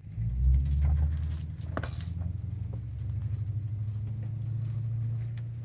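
An engine running steadily, heard as a low hum that is loudest in the first second or so and then holds level, with scattered light clicks and ticks over it.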